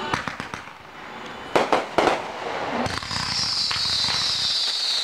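Fireworks going off: light crackling, then two sharp bangs about half a second apart, followed by a long, high whistling hiss that slowly falls in pitch.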